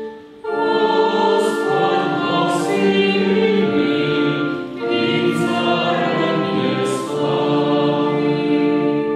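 A small group of voices singing a slow church hymn or sung psalm with long held notes, accompanied by a Yamaha digital keyboard. A held keyboard chord sounds first, and the voices come in about half a second in.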